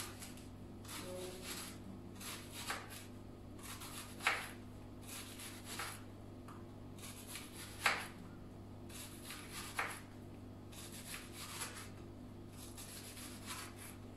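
Knife slicing an onion into thin rings on a plastic cutting board: a sharp tap of the blade on the board about every two seconds, with fainter cutting scrapes between.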